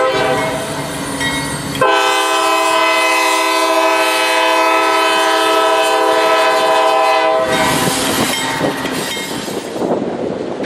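Diesel freight locomotive's air horn sounding two steady blasts: a short one ending about two seconds in, then a long one of about five and a half seconds, over the rumble of the slowly passing double-stack container train. After the horn stops, the train's wheels are heard rolling and clattering over the rails.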